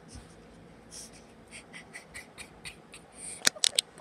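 Light scratching ticks, about two a second, then three sharp clicks in quick succession near the end.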